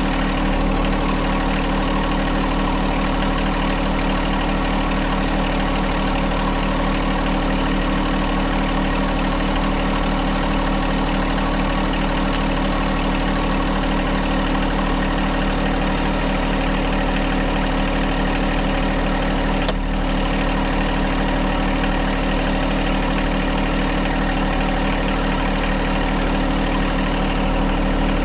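John Deere 1025R compact tractor's three-cylinder diesel engine running steadily at a constant speed, with a single short click about two-thirds of the way through.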